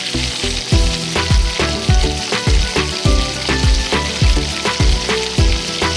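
Background music with a steady beat, laid over the steady sizzle of chopped vegetables stir-frying in a small steel pot over a wood fire.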